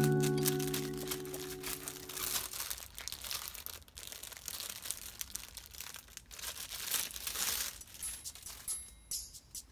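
Clear plastic wrapping crinkling as a Bluetooth keyboard is handled and pulled out of its bag. Background music fades out in the first couple of seconds.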